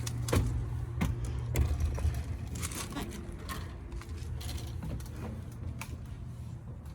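A series of irregular light clicks and knocks over a steady low rumble, fading toward the end.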